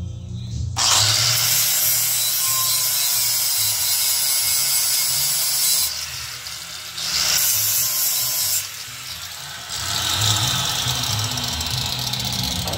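Electric angle grinder grinding metal in stretches: it starts about a second in and eases off twice. A low beat of background music runs under it.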